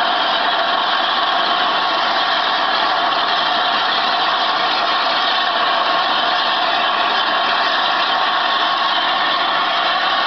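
Steady, loud hiss of steam escaping from a standing LNER A4 Pacific steam locomotive, with no exhaust beats.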